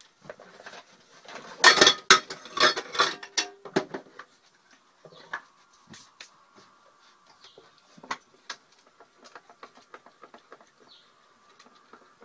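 Utensils knocking and clinking against a stainless steel mixing bowl as flour is added and stirred in. A burst of sharp knocks comes about two seconds in, followed by scattered lighter clicks.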